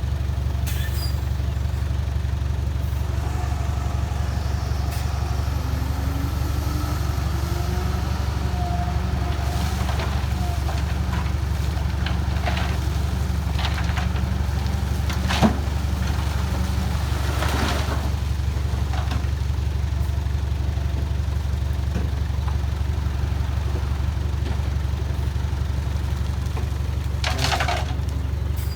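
Heavy diesel machinery engine running steadily at a low, even pitch, with scattered faint clicks and one sharp knock about halfway through.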